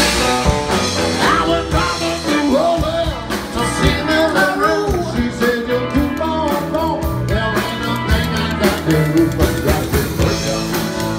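Live blues-style jam: a harmonica plays bending, wavering phrases over a fast clicking rhythm on the spoons.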